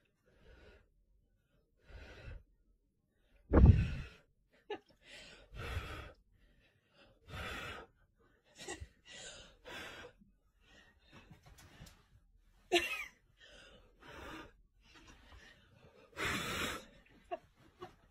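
A person's breathy gasps and breaths, coming in irregular bursts about a second apart, without clear words; the loudest burst comes a little under four seconds in.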